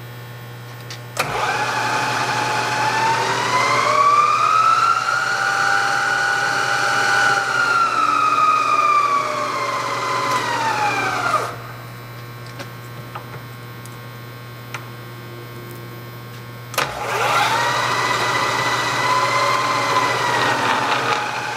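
Bridgeport Series 1 milling machine head running with a steady whine. It starts about a second in, rises in pitch, holds, falls back and cuts off about 11 s in. It starts again about 17 s in and holds a steady whine, as the head is put into low speed.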